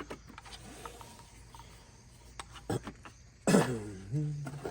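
Faint clicks of packaging and parts being handled. About three and a half seconds in comes a short wordless vocal sound from the man, loud and lasting about a second.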